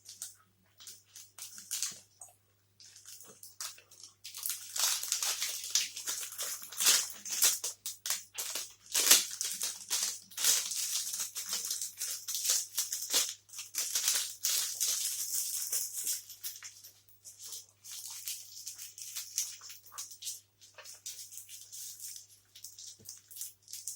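Close-miked chewing and wet mouth sounds of someone eating a soft, sticky blueberry protein bar: irregular smacking clicks, densest in the middle stretch and thinning out toward the end.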